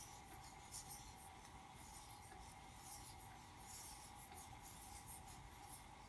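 Near silence with faint, irregular soft rustles of worsted yarn rubbing over a metal crochet hook and fingers as chain stitches are worked.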